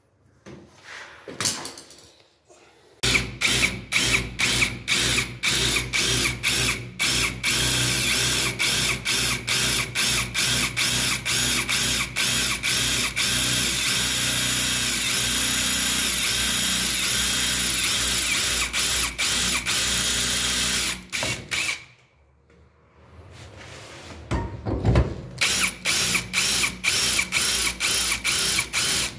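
Electric drill boring into the brass cylinder of a door lock, the bit cutting through its pin tumblers. The drill starts in short stop-start bursts and then runs steadily for a long stretch. It stops for about two seconds, then starts again in short bursts.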